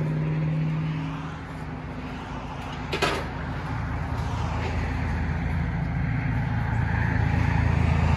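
2016 Ford F-150's naturally aspirated V6 idling through a Flowmaster Outlaw muffler and a straight 3-inch pipe to a 5-inch tip: a steady low exhaust note that grows louder toward the end. A single sharp click about three seconds in.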